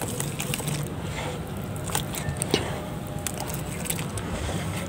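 A hand squeezing and swirling wet mud slurry in a plastic tub: squelching and sloshing with many small irregular clicks.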